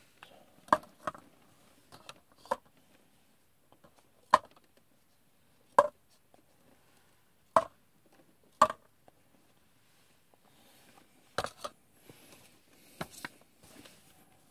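Stack of paper cups being handled: about a dozen sharp, papery taps and clicks at irregular intervals, some in quick pairs, as the cups are moved and knock against each other.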